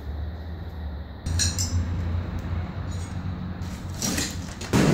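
Light clinks and a clatter of loose hard objects being handled, over a steady low rumble. There is a louder scraping rush near the end.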